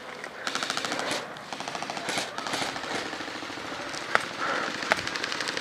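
Airsoft electric guns (AEGs) firing rapid full-auto bursts of clicks, with a couple of sharper single cracks near the end.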